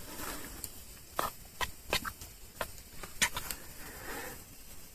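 A few scattered light clicks and taps, about five over two or three seconds, over a faint background hiss.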